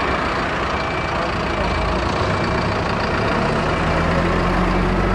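Road-sweeper truck's engine and sweeping gear running up as it moves off to sweep, a dense rushing noise over a heavy diesel note that strengthens and rises in steps during the first few seconds.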